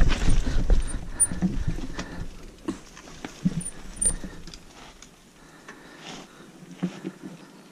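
Hardtail mountain bike, a Specialized Rockhopper, rolling down a rough dirt trail: a rumble of tyres and rattling over bumps that fades after about two seconds, leaving scattered clicks and knocks from the bike.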